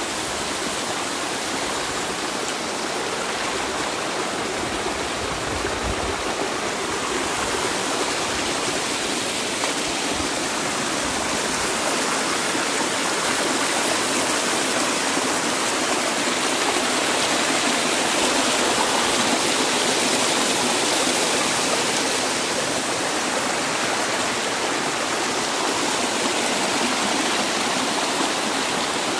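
Shallow mountain creek rushing steadily over granite slabs in a small cascade, a continuous even wash of water noise.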